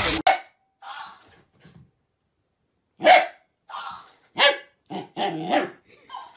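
Dog barking: a string of short barks and yelps starting about three seconds in, with a few fainter sounds before.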